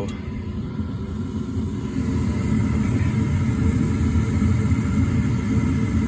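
Gas rushing unlit out of a Bryant furnace's burner manifold, a steady low rush that grows louder about two seconds in, with a faint steady hum. The gas valve is open but the hot-surface igniter shows no glow: a failed igniter, the cause of a code 34 ignition-proving failure.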